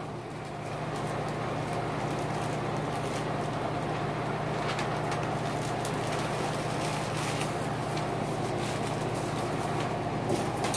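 Steady hum of an electric fan running, with a few faint clicks and rustles of the phone being handled.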